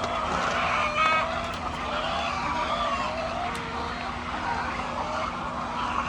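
A large flock of laying hens calling all at once, many overlapping wavering cries, with one hen's short stuttering cackle about a second in. A steady low hum runs underneath.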